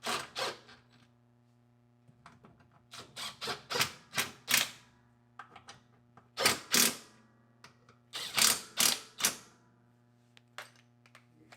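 Ratchet wrench clicking in several short runs as screws are tightened down.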